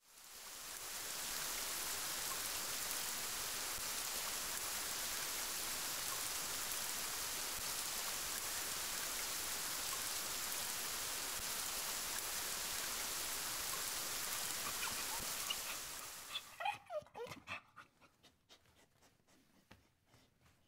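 A steady hiss fades out, then a dog gives a brief whine and pants in quick rhythmic breaths, about three a second, that fade away.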